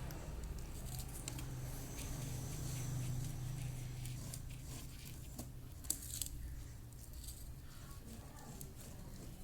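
Cardboard being handled during crafting: scattered small crinkles, scrapes and taps, with a sharp click about six seconds in, over a low steady hum.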